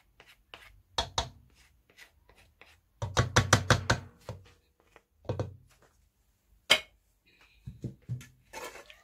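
A spoon knocking and scraping against the cooking pan and serving vessel as chicken in gravy is spooned onto a layer of rice for biryani. A quick run of about eight taps comes about three seconds in, and one sharp knock a little before the end.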